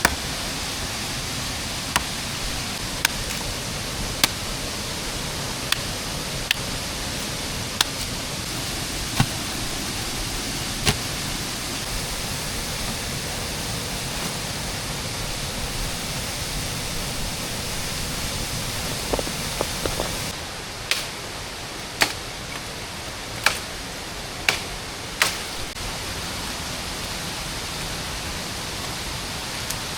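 Steady hiss of rain in the forest, with sharp knocks or ticks every second or two that stand out above it. The hiss dips slightly about two-thirds of the way through.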